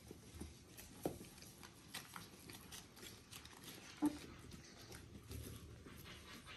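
Three-week-old Border Collie puppies scrabbling and shuffling on puppy pads, with two short faint squeaks, about a second in and about four seconds in.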